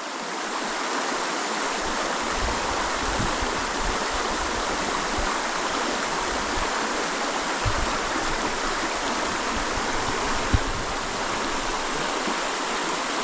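Steady rush of river water running over stones, with a faint low rumble beneath and a brief thump about ten and a half seconds in.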